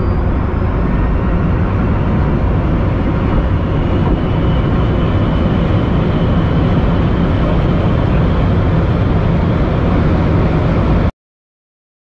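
Hypercar accelerating flat out at high speed, heard from the cabin: a loud, dense rumble of road and wind noise with a faint whine slowly rising in pitch. The sound cuts off abruptly about eleven seconds in.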